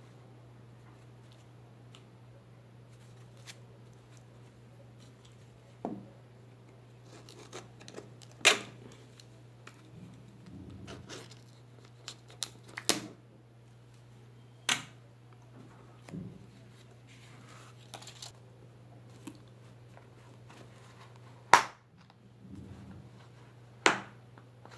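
Objects and packaging being handled: scattered sharp plastic clicks and knocks, about seven in all and the loudest two far apart, with short bouts of rustling and scraping over a steady low hum.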